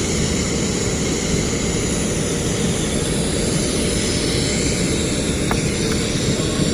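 Steady low rumble of running machinery, unchanging throughout, with one faint tick about five and a half seconds in.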